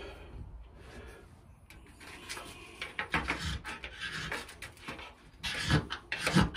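Ferro rod being scraped with a striker to throw sparks onto cotton-ball tinder: a series of short rasping strokes starting about two seconds in, loudest near the end.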